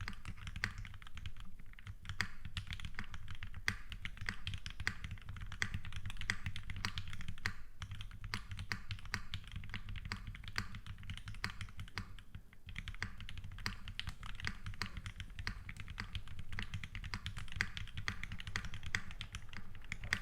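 Fast, continuous typing on a custom mechanical keyboard: an Aurora Input Series 65 with lubed FFF switches on a brass plate and GMK Dracula keycaps. The keystrokes come densely and evenly, with a couple of brief pauses.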